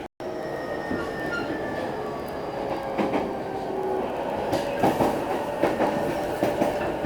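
JR East E233-0 series electric train running, heard from inside the car: a steady rumble with a few steady tones over it, and wheels clacking over rail joints from about halfway through, the clacks coming closer together toward the end. The sound cuts out for a moment right at the start.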